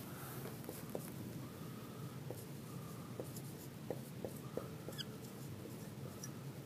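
Dry-erase marker writing on a whiteboard: short, faint squeaks of the felt tip dragging on the board, with small ticks as the marker is set down and lifted.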